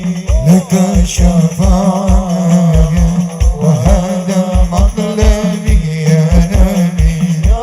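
Sholawat music played by a hadrah ensemble: frame drums beating a steady rhythm with jingles, under a held low note and a wavering melody line.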